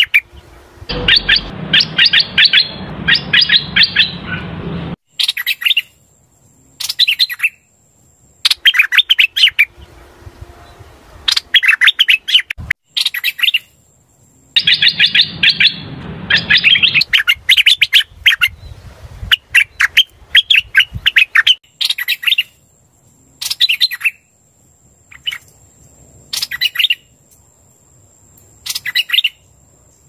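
Black-collared starling (hoành hoạch) decoy song: loud bouts of quick chattering notes, repeated every second or two with brief pauses, as used to lure wild birds to a trap.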